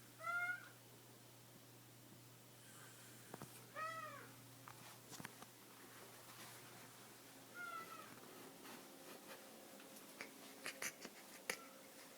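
A man's snore with a high, meow-like squeal on each breath, three times about four seconds apart, each squeal rising then falling in pitch. A steady low hum runs underneath, and a few sharp clicks come near the end.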